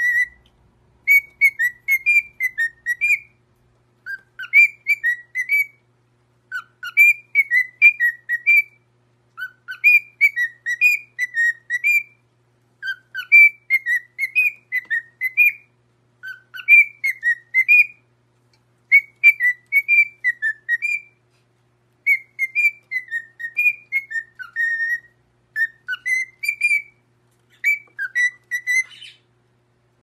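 Cockatiel whistling a short tune of clear rising and falling notes, repeating the same phrase over and over with brief pauses between.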